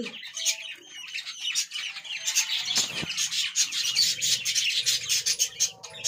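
A flock of budgies chirping and chattering in rapid, overlapping high calls, with a single knock about three seconds in.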